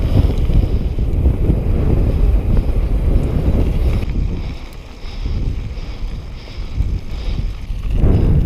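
Wind buffeting the microphone of a camera on a moving mountain bike, over the rumble of knobby tyres rolling on a gravel track. The rumble eases for a few seconds in the second half, then swells again near the end.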